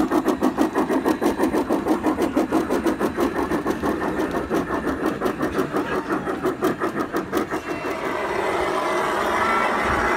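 Large-scale model steam locomotive chuffing in a steady rhythm, about five chuffs a second. The chuffing fades out about eight seconds in, leaving a steady background noise.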